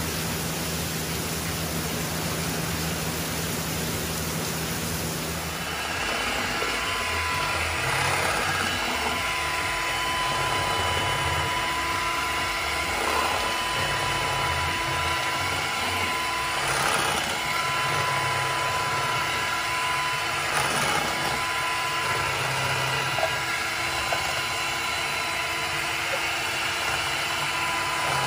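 Electric hand mixer running steadily, its beaters whipping bread pudding batter in a glass bowl. It starts about six seconds in, after a steady hiss.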